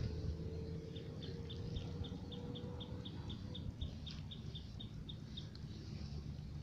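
A small bird calling a rapid, even series of short high chirps, about four a second, that stops after about four seconds. Under it runs a steady low rumble.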